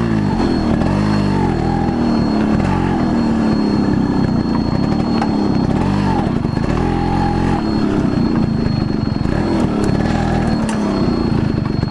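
Yamaha RX100's two-stroke single-cylinder engine running on the move over rough ground, its pitch rising and falling repeatedly as the throttle is opened and eased.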